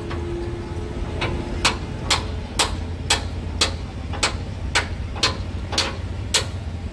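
Hammering: sharp strikes in an even rhythm of about two a second, some with a brief ringing tone, over a steady low hum.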